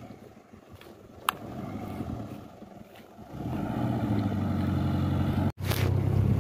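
Mitsubishi SUV's engine running steadily at low revs, faint at first, then loud and close from about halfway. A short sharp click comes about a second in, and near the end there is a momentary dropout followed by a rush of handling or wind noise on the microphone.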